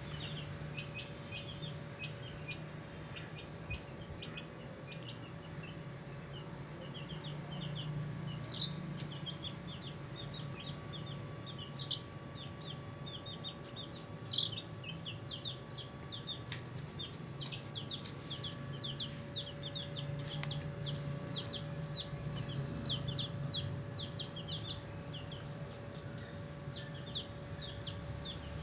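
Young chickens peeping continually in short, high-pitched notes, often in rapid runs, over a steady low hum.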